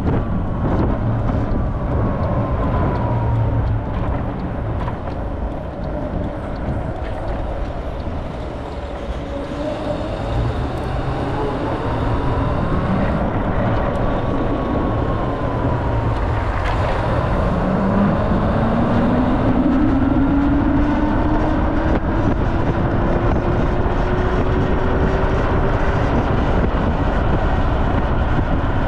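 Wind rush and road noise while riding an electric motorcycle. From a little past the middle, a whine rises steadily in pitch for about ten seconds.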